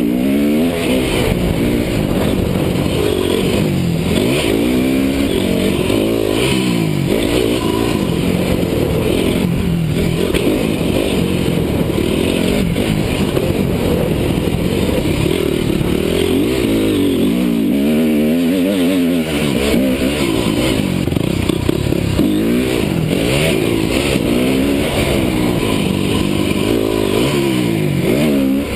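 Honda CRF250 four-stroke single-cylinder motocross engine at race speed, heard from a camera mounted on the bike. The pitch rises and falls every second or two as the throttle is opened and chopped and the gears change.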